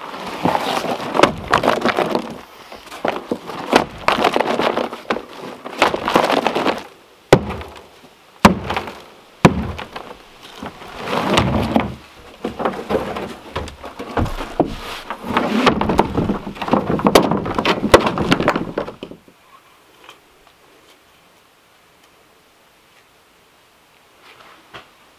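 Field stones being handled and loaded into a plastic sled that is dragged over dirt and wood chips: scraping with many heavy knocks and thuds in repeated clusters, stopping about nineteen seconds in. A few faint clicks follow near the end.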